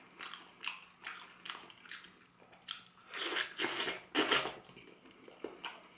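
A person biting into and chewing a potato-starch-coated fried chicken drumstick, heard as a string of short, sharp mouth sounds. The loudest bites come close together a little past the middle.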